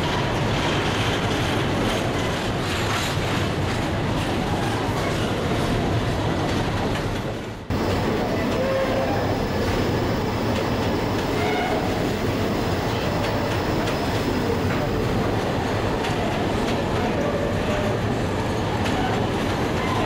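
Freight train of covered hopper wagons rolling past at close range: a steady loud rumble of wheels on the rails, broken by a brief dip about eight seconds in.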